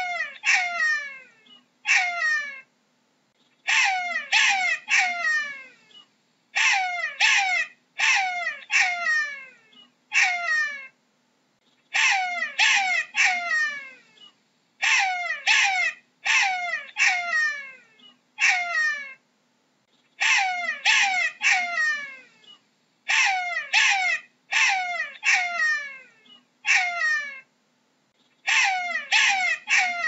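Jackal calling: a run of short, high yelping wails, each sliding steeply down in pitch, coming in bursts of three to five with short pauses between bursts.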